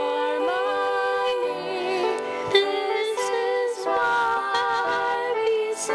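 Female voices, a woman and a girl, singing a duet in long held notes, some with vibrato.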